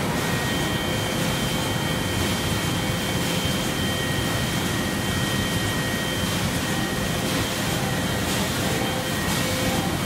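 Muller Martini Presto 1550 saddle stitcher running: a steady machine noise from its feeders and gathering chain, with a constant high whine through it.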